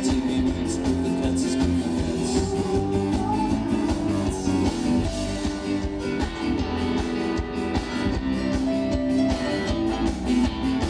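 Live rock band playing an instrumental passage without vocals: electric guitars over keyboard and drums.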